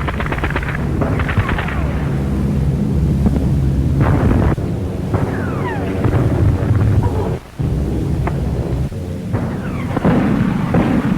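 Air-raid sound effects: anti-aircraft gunfire and explosions over a steady low drone of aircraft engines, with several descending whistles about halfway through.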